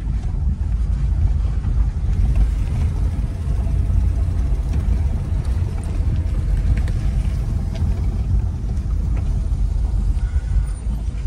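Car driving on an unpaved dirt road, heard from inside the cabin: a steady low rumble of engine and tyres.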